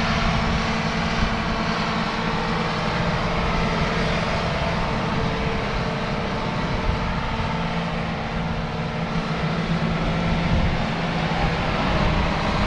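Diesel engines of large farm machinery running steadily as they travel along a road, a continuous low drone with a few small knocks.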